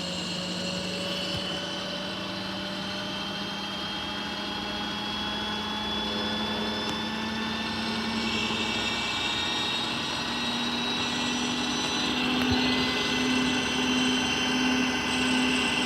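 Beko washing machine's drum motor speeding up in a test-mode spin, a whine rising slowly and steadily in pitch. In the last few seconds it levels off and pulses about once a second as the drum turns.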